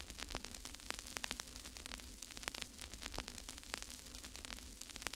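Faint crackling static with irregular sharp pops several times a second, over a low steady electrical hum.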